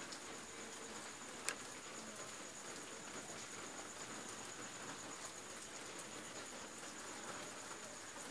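Steady high-pitched trill of an insect over faint hiss, with one short sharp click about one and a half seconds in.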